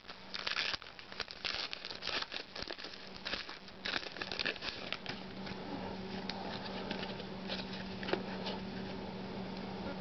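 Crinkling and tearing of a foil trading-card pack wrapper, with the cards handled, in quick crackly bursts that thin out about halfway through. A faint low steady hum sits underneath.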